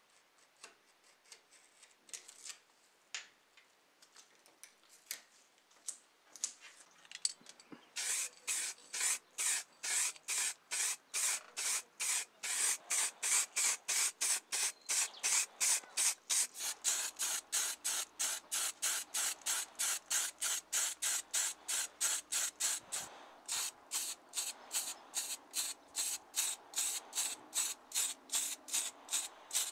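Aerosol can of acrylic spray paint sprayed in rapid short bursts, about three a second, coating small model-car parts. Before the spraying starts, about eight seconds in, there are a few scattered light ticks and taps.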